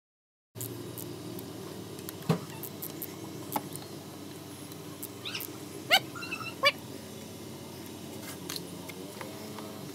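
Steady low hum with a few light clicks while a high-pressure fuel pump is fitted by hand, broken by three short, high-pitched chirps with a rising pitch between about five and seven seconds in.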